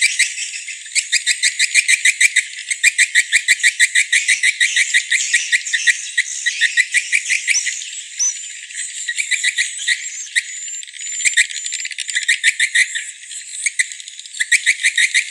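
Recorded swiftlet calls played as a lure for edible-nest swiftlets: a dense, rapid chatter of sharp chirps and clicks, many a second, with a few short high whistles mixed in. The sound is thin, with no low end.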